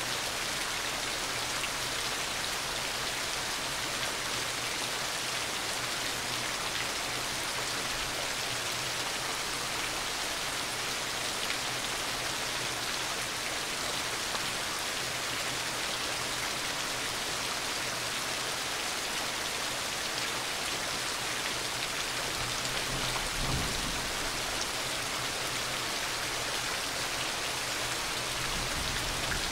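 Heavy rain pouring steadily, a dense even hiss of drops. A brief low rumble swells up about two-thirds of the way through.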